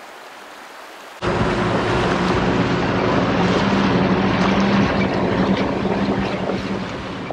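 A creek flowing quietly, then an abrupt cut to a four-wheel drive's engine running steadily under load, with loud rushing and splashing of water, as of the vehicle driving through a shallow river crossing.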